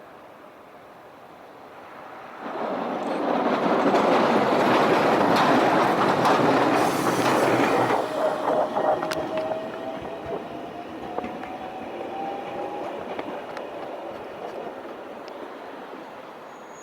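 Kumamoto City Tram car 5014 running in on street rails: its running noise rises suddenly about two seconds in and stays loud for several seconds. It then fades while a thin whine rises slowly in pitch for about five seconds.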